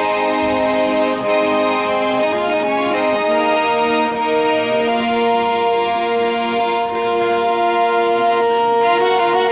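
Georgian garmoni, a small diatonic button accordion, playing a Tushetian dance tune: held chords under a melody whose notes shift about three seconds in.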